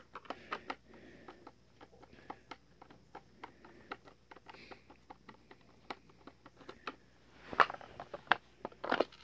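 Screwdriver backing out the small screws in the plastic belly casing of an animatronic Santa figure: a faint, irregular string of light clicks and ticks, with two louder handling scrapes near the end as the casing is worked open.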